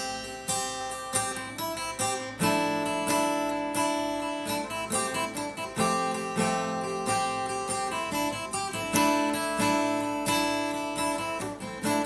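Acoustic guitar strummed, chords ringing between quick strokes and changing every few seconds.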